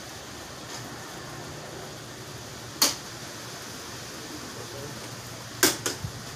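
Steady fan hum in a small room, with one sharp click about three seconds in and two quick clicks near the end.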